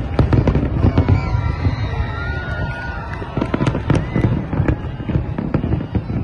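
Fireworks display: a rapid barrage of bangs from aerial shells bursting. The bangs come thickest right at the start and again about three and a half seconds in.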